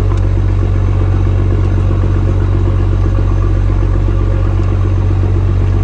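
Fishing trawler's diesel engine running steadily: a loud, even low drone with no change in speed.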